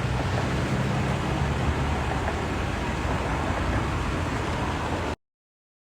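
Roadside traffic noise with a motor vehicle running steadily and a low hum, cutting off suddenly about five seconds in.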